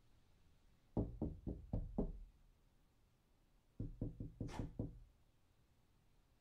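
Knuckles knocking on a door: two rounds of five or six quick raps, nearly three seconds apart.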